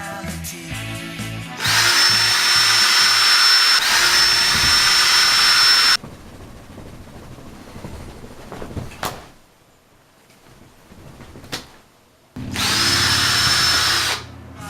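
Electric power drill run in bursts: it spins up to a high whine about two seconds in, is triggered again a couple of seconds later and stops abruptly, then after a quiet stretch with a couple of clicks runs again briefly near the end.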